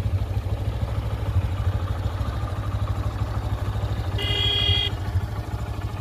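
Motorcycle engine running steadily as the bike is ridden along the road, heard from on board. A horn sounds once, briefly, about four seconds in.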